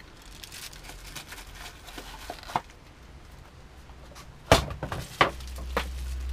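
Handling of packaging as a bubble-wrapped battery is lifted out of a small cardboard box: light rustling and crinkling, then a loud thunk about four and a half seconds in, followed by two lighter knocks.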